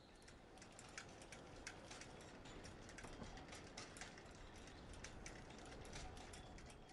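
Near silence with faint, irregular crackling clicks over a low hiss.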